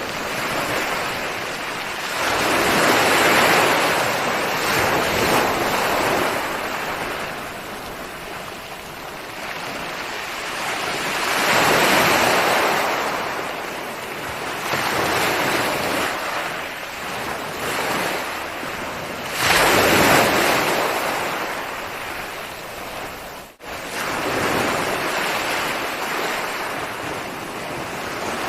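Ocean waves breaking and washing back. The hiss of surf swells and eases, a surge every few seconds, the loudest about a third and two-thirds of the way through. A momentary drop-out about three-quarters of the way through.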